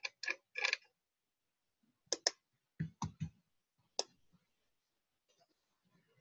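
Computer mouse and keyboard clicks: about nine short, sharp clicks in small groups with pauses between.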